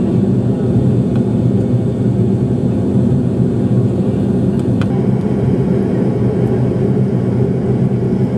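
Steady cabin noise of a jet airliner in flight, the engines and rushing air heard from inside the cabin. A faint click comes a little under five seconds in.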